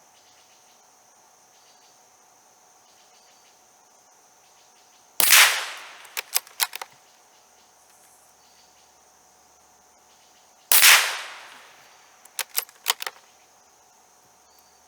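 Two rifle shots from a Savage B22-V bolt-action rifle, about five and a half seconds apart, each followed within a second by a few quick clicks of the bolt being worked. Crickets or other insects drone steadily underneath.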